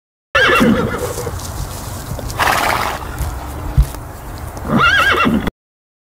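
Horse whinnying twice: a wavering whinny at the start and another near the end, with a short noisy breath between them.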